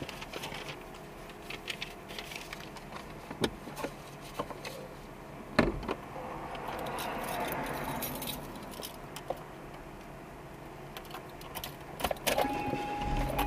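Keys jingling and small clicks and rattles of things being handled inside a parked car, with a louder knock about six seconds in. Near the end a steady electronic chime starts and a low rumble comes in.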